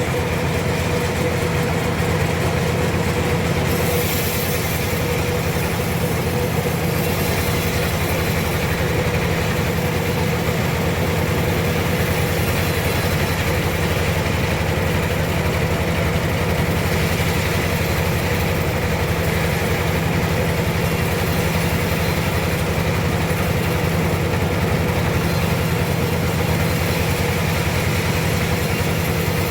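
A sawmill's engine running steadily at a constant speed, with a high hiss over it that swells and eases at times.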